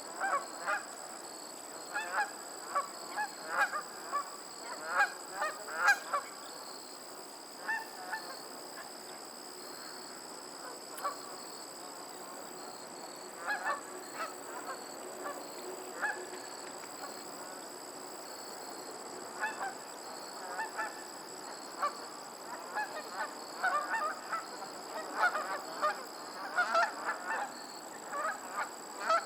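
A flock of geese honking on a lake: many short honks in quick clusters, thinning to a few scattered calls in the middle before picking up again.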